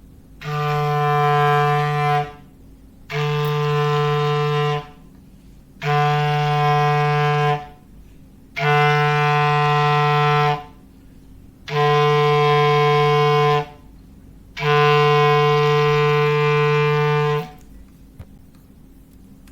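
Clarinet sounding a foghorn-like call: six long, low held blasts of about two seconds each with short gaps between them. The last blast is a little longer.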